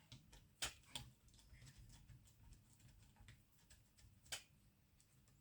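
Near silence broken by a few sharp clicks of small parts and tools being handled, two close together near the start and one more near the end.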